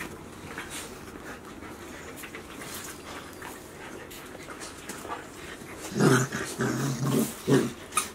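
Golden retrievers play-growling over a tug toy, with light scuffling and claw clicks on the floor; a run of short, loud growls comes in the last two seconds.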